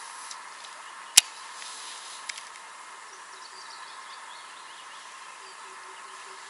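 A baitcasting reel gives one sharp click about a second in as the retrieve begins after a cast, with a lighter tick a second later. Faint birdsong runs under it.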